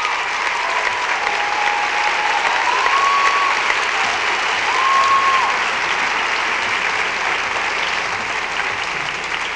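Audience applauding steadily, with two long cheering calls rising over it about three and five seconds in.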